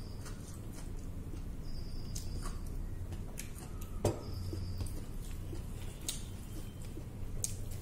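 Close-up eating sounds: small wet clicks and smacks of chewing and of fingers working food on plates, with one sharper click about four seconds in. Two brief high squeaks stand out, a couple of seconds apart, over a low steady hum.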